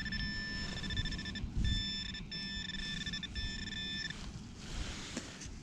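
Metal detector sounding a steady electronic tone in a few unbroken stretches with short breaks, as the coil is swept over a target that turns out to be a piece of lead. Low rustling of the detector being swung runs underneath.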